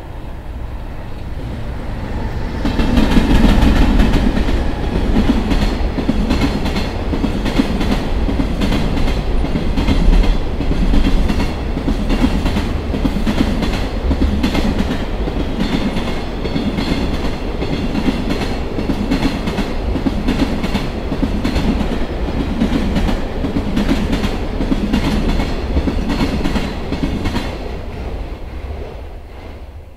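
JR Freight EH500 electric locomotive passing close by, followed by a long rake of container flat wagons. The sound builds as the locomotive comes past and is loudest a few seconds in. It then settles into a regular clickety-clack of wagon wheels over the rail joints, which fades away near the end.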